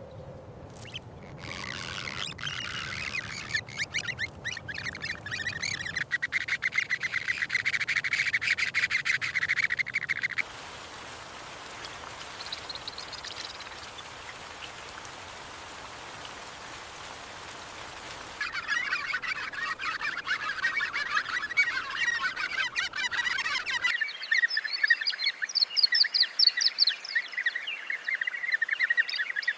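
Rapid chattering animal calls at a fairly steady pitch, cut off abruptly about ten seconds in by a stretch of steady hiss lasting about eight seconds, after which dense chattering calls return.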